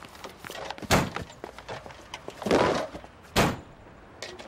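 Three heavy thuds, the middle one longer: boxes of beer cans being dumped into a car and the car door slamming shut.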